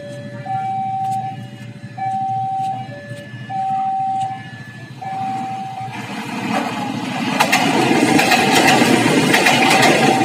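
Level-crossing warning alarm sounding its repeating two-tone signal, a higher and a lower tone alternating about once a second. From about six seconds in, a KRD diesel railcar approaches and passes over the crossing; its running noise, with sharp clicks from the wheels, grows loud and covers the alarm near the end.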